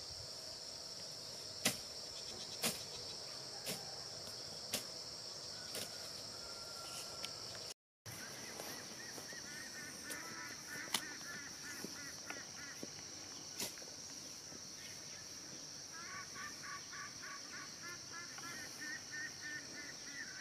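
Steady high-pitched insect drone throughout, with sharp knocks about once a second during the first six seconds. After a brief break, runs of short repeated bird calls come in twice.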